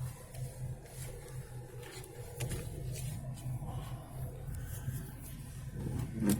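Vehicle engine idling, heard from inside the cab as a steady low, evenly pulsing hum, with a few faint ticks and a short knock near the end.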